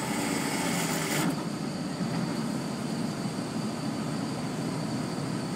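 Steady road noise heard from inside a moving vehicle's cabin: a low rumble of tyres and engine, with a louder hiss over about the first second.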